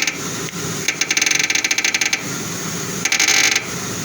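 Front steering linkage of a Ford Crown Victoria giving bursts of rapid clicking as the steering wheel is turned: a run of about a second starting about a second in, and a shorter one near the end. The owner takes the noise for a worn idler-arm bushing or a binding tie rod.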